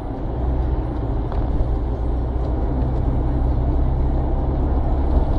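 Car driving on a city street, its engine and road noise heard from inside the cabin through a dashcam microphone as a steady low rumble.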